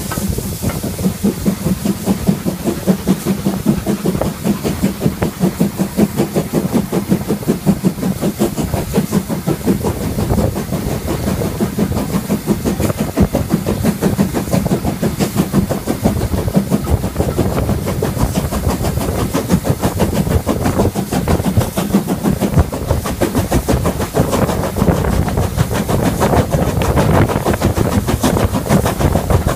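Ivatt Class 4MT 2-6-0 steam locomotive working under steam, its chimney exhaust beating in a fast, even rhythm over the clatter of wheels on rail, heard from the cab.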